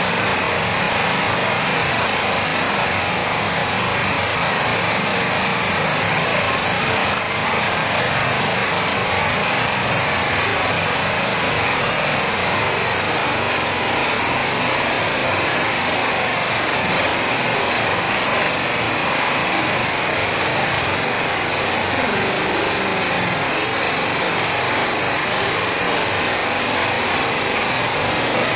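Steady rain falling, an even hiss that holds at the same level throughout.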